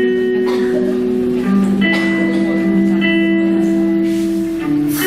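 Slow background music: plucked-string notes over long held chords that change a few times.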